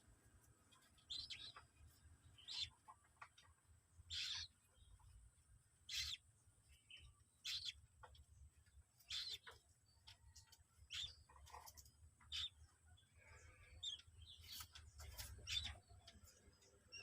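Faint, short, high-pitched peeps of common moorhen chicks, one every second or so, over a low rumble.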